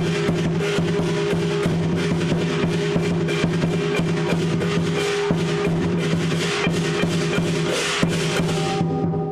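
Lion dance percussion: a big drum beaten in rapid strokes with clashing cymbals, over a steady low ringing tone. The cymbal wash briefly drops out near the end.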